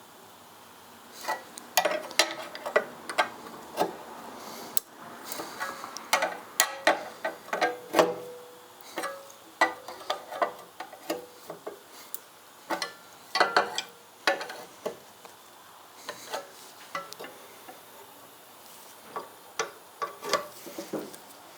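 Hand tools on the motorcycle's license plate mount bolts: irregular metallic clicks and clinks of a ratchet and socket working the nuts, in short clusters with pauses between.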